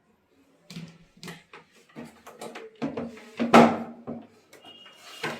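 Irregular knocks, clicks and clatter of parts being handled during work on a water purifier's pump, loudest about three and a half seconds in.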